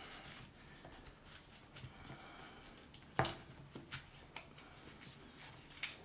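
Faint unpacking noise: soft rustling of a paper silica gel packet and a few light clicks and taps as the pen is handled in its foam-lined box, the sharpest click about three seconds in.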